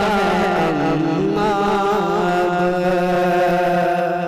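A male voice singing an Urdu devotional kalam, drawing out one long note. It wavers with ornaments for about the first second, then is held steady.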